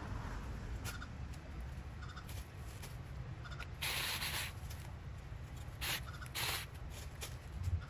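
Dry vines and brush rustling and crackling as they are pulled by hand from a chain-link fence, in a few short bursts, the longest about halfway through, over a low steady rumble.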